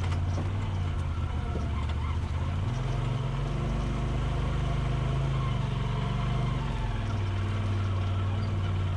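Polaris RZR Pro XP side-by-side's twin-cylinder engine running steadily on the trail; its pitch rises about three seconds in and drops back about four seconds later as the throttle is opened and eased off.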